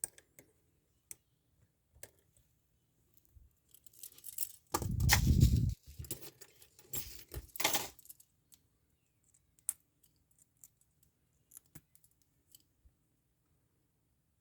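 Steel handcuffs and a lock pick clicking and rattling as the pick is worked in the cuff's keyhole, with a louder burst of rattling and jostling about five seconds in and a couple more soon after.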